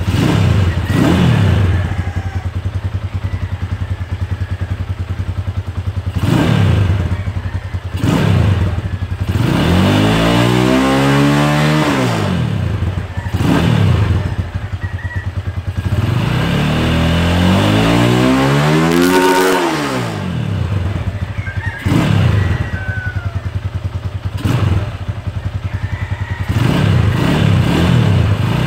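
Rusi SS250 motorcycle engine through its stock exhaust, idling and revved in place: several short throttle blips and two longer revs that climb in pitch and drop back to idle.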